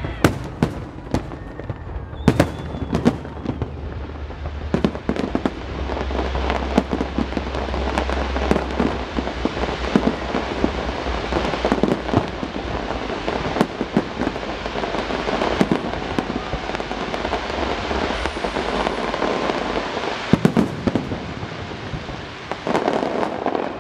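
Aerial firework shells bursting overhead in a rapid run of bangs, with a dense crackling that builds through the middle and thins out near the end.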